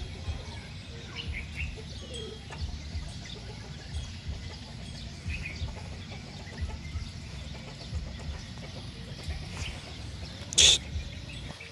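Small birds chirping now and then over a low, steady rumble, with one short, loud burst of noise about a second before the end.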